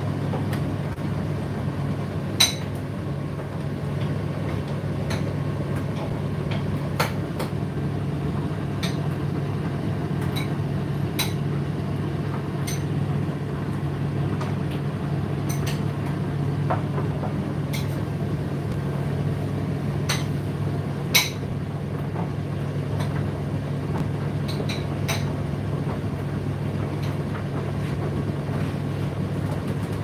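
Indesit IDC8T3 condenser tumble dryer running mid-cycle: a steady low motor and drum hum with irregular clicks and knocks. A sharper knock comes a couple of seconds in and another about two-thirds of the way through.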